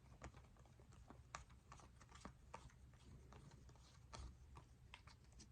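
Faint, irregular clicks and light rustles of baseball trading cards being handled and flipped through one by one.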